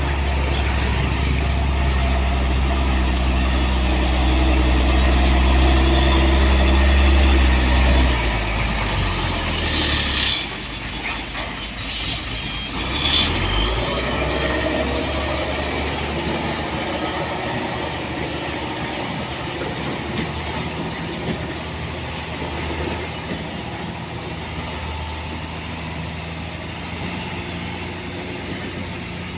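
Hino dump truck's diesel engine running hard under load, then easing off about ten seconds in, with two short air hisses soon after. From then on a high reverse alarm beeps steadily over the idling engine.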